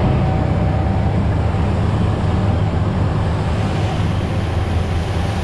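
Motor boat under way: a steady low engine drone under a constant rush of wind and water.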